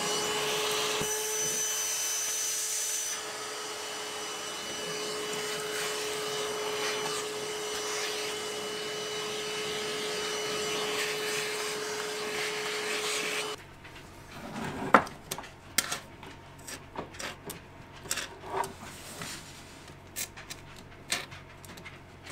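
Handheld power tool spinning up and running steadily against the steel frame while the builder preps it to bolt on a ground cable. It cuts off suddenly about 13 seconds in, and a few scattered clicks and knocks follow.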